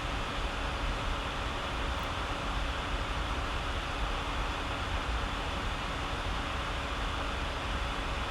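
Steady background room noise: an even hiss with a faint low hum, unchanging throughout.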